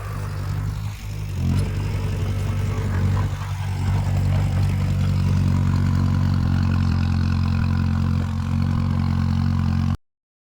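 Heavy earthmoving machine's diesel engine running steadily at a low, even note. It gets somewhat louder about a second and a half in and holds there, then cuts off abruptly near the end.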